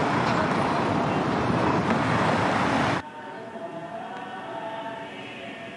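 Loud city street noise, a steady rumbling traffic wash, for about three seconds. It then cuts off abruptly to a much quieter indoor background with a faint steady hum of tones.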